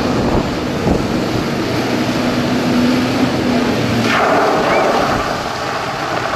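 An engine running steadily with a heavy wash of wind or water noise. Its hum drops away about four seconds in, and a brief rushing surge follows.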